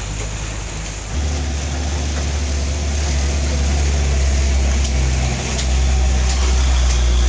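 Heavy diesel engine of a Hino 500 tanker truck running close by, a deep steady drone that comes in loud about a second in, with a steady hiss of rain on a wet road.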